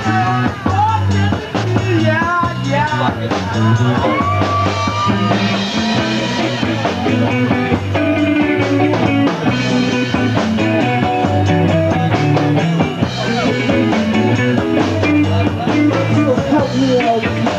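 Live rock band playing an instrumental passage: an electric guitar lead line with bent notes over bass guitar and a drum kit.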